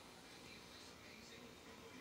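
Near silence: faint room tone with a low hiss.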